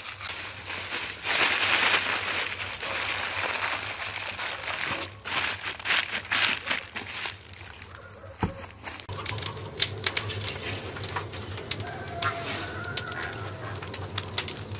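Aluminium foil crinkling and crumpling as it is pressed and folded tightly around a whole goose. From about nine seconds in it gives way to quieter scattered crackles over a low hum from the tandoor, with a few short bird chirps.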